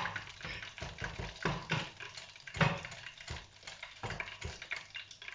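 Hot oil in a deep fryer crackling and popping irregularly around breaded prawns, with a sharp click at the start.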